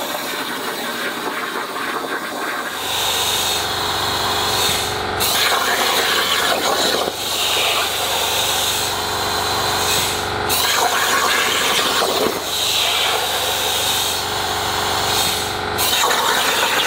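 Hypertherm machine plasma torch cutting steel plate: a loud, steady hiss over a low hum, cutting out briefly about five, ten and sixteen seconds in.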